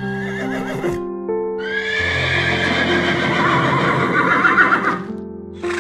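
Horse whinnying over background music: a short whinny at the start, then a long, quavering whinny from about a second and a half in.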